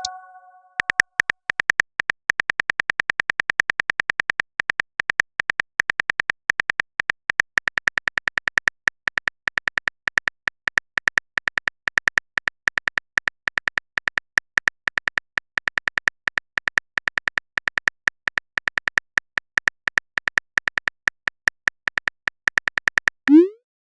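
Keyboard-typing sound effect of a texting-story app: a long run of quick, sharp clicks, several a second, as a chat message is typed out. Near the end a short rising swoop marks the message being sent.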